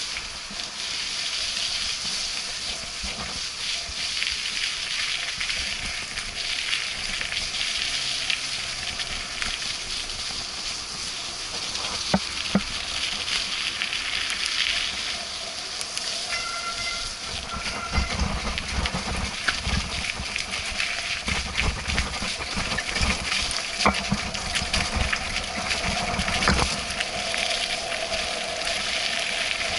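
Steady hiss of riding along a wet, muddy trail, from tyres and air rushing past, with scattered knocks and clicks, and heavier low thumps over bumps in the second half.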